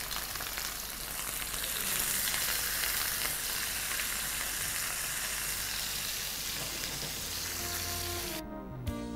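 Pieces of rohu fish, rubbed with salt and turmeric, sizzling steadily as they fry in hot oil in a frying pan. Near the end the sizzle cuts off suddenly as music comes in.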